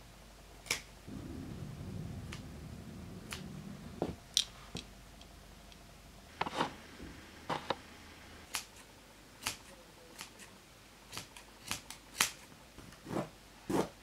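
Scissors snipping through the tufted yarn pile of a rug: a run of short, sharp snips at an irregular pace, sometimes two or three close together. A soft low rustle of handling sits under the snips for a few seconds near the start.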